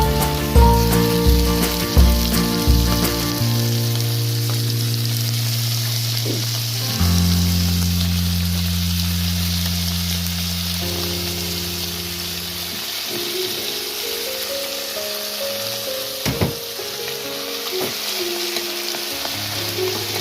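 Beef sizzling steadily as it is seared in a hot pan for kaldereta. Background music plays throughout.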